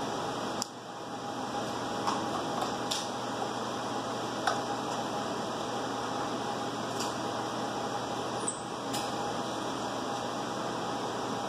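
Steady fan hum with a faint whine, and a few light metallic clicks and taps as a hand screwdriver works on a UPS battery module's metal housing. The sharpest click comes about halfway through.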